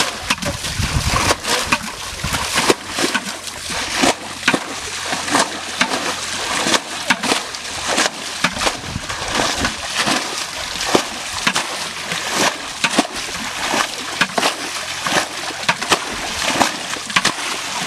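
Water splashing and sloshing in quick, irregular splashes without a break, as when hands and feet work through shallow water catching fish by hand.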